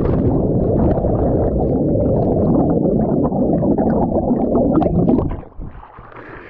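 Underwater rush of bubbles and churning lake water heard with the camera's microphone submerged, just after a person has plunged in: a loud, dense, muffled noise. It stops abruptly about five seconds in as the camera breaks the surface, leaving quieter lapping and dripping water.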